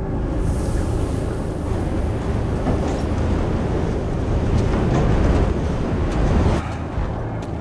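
Sound-designed desert dust-storm ambience for an animated film: a heavy, steady low rumble with a rushing hiss of wind and blowing dust. It eases slightly about six and a half seconds in.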